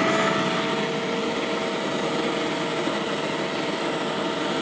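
Ozito 36V cordless blower-vacuum running steadily: an electric motor whine over the rush of the fan's air, its pitch settling slightly in the first second.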